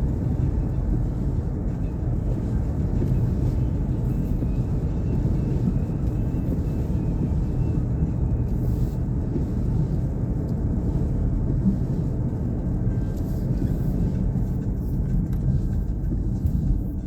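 Steady low rumble of road and engine noise inside a Nissan Pathfinder's cabin while driving at about 45 mph.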